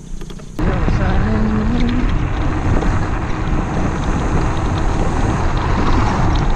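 Wind buffeting the microphone as an electric scooter moves off and rides, starting suddenly about half a second in and staying loud and steady, with a short rising whine near the start.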